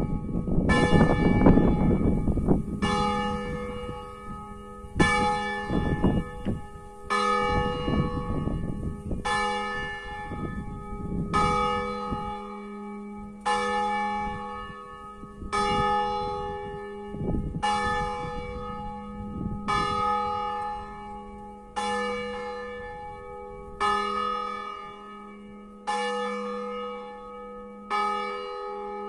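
Bells of a five-bell church tower tuned in E-flat, swung by hand, with one clear strike about every two seconds and each stroke ringing on into the next. A low rumble runs under the strikes over the first dozen seconds, then fades.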